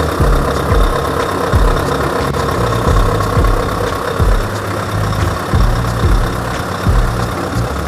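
Scania 770S truck's 16.4-litre V8 diesel on its stock exhaust, idling steadily with a deep, even beat.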